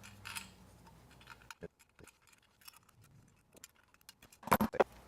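Small metal parts clicking and clinking as a metal cable connector is fitted into the knockout hole of an electrical box, with a few louder sharp clicks about four and a half seconds in.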